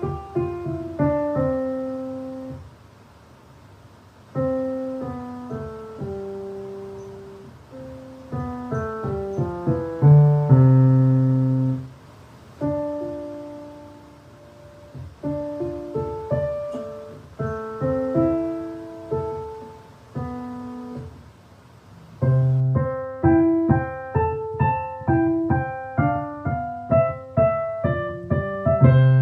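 Solo piano playing short phrases of notes and chords, broken by pauses of about two seconds. About three-quarters of the way through it changes to a cleaner-sounding passage of quicker, evenly paced notes.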